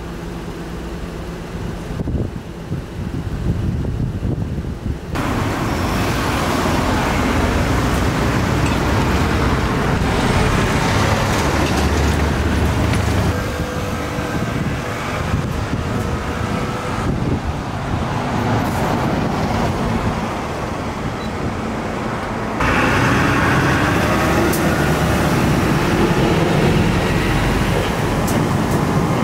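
Outdoor street ambience with road traffic passing, a steady rushing noise whose level changes abruptly several times.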